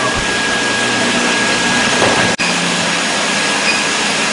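Steady machine noise from an induction brazing setup for diamond saw blades, a constant rushing hiss with a thin high tone running through it, broken by a split-second dropout about two and a half seconds in.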